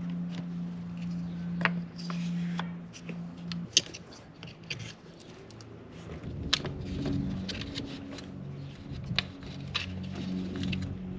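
Hand tools clicking and clinking as the valve cover bolts of an Audi A2 1.4 petrol engine are tightened with a torque wrench: a handful of sharp, irregular clicks over a low hum.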